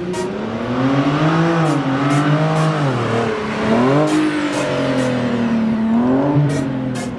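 Car engine revving, its pitch climbing and dropping several times.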